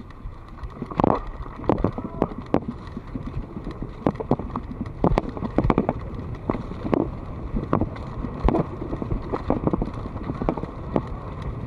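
Mountain bike ridden fast over a rough dirt trail: a steady rumble from the tyres on the ground, broken by frequent sharp knocks and rattles as the bike jolts over bumps.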